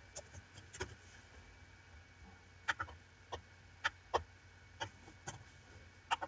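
Computer mouse clicking: about ten short, sharp clicks at irregular spacing, some in quick pairs.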